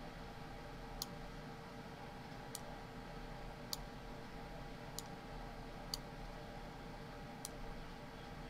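Computer mouse clicking: six short, sharp clicks at irregular intervals of about a second or more, over a faint steady hum.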